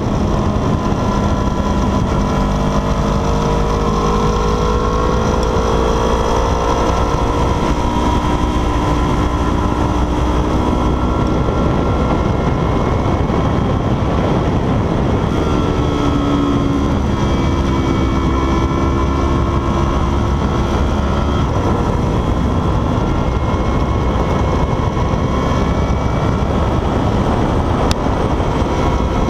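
Motorcycle engine at racing speed, its pitch rising and falling as the revs change through the corners, with heavy wind noise buffeting the onboard camera's microphone.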